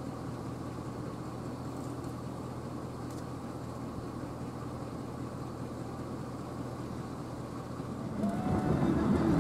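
Steady low rumble with a constant hum and light hiss, its source unseen. Background music fades in near the end.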